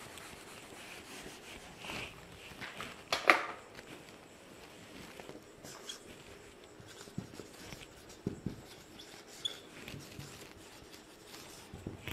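A whiteboard duster rubbing across a whiteboard, then a marker pen writing on the board in faint scratchy strokes. One sharp knock about three seconds in is the loudest sound.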